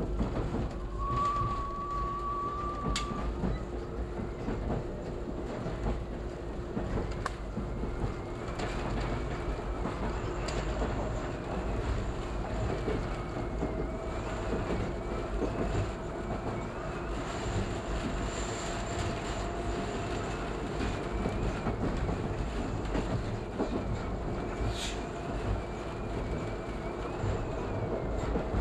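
Toronto subway train running along the track, a steady rumble with occasional clicks over the rail joints. A brief high wheel squeal sounds in the first few seconds as the train takes a curve, and a faint tone rises slowly through the second half.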